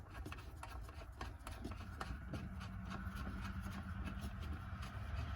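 Faint small clicks and rubbing as tail-light parts and wing nuts are handled by hand. From about two seconds in, a steady low hum comes in and grows louder.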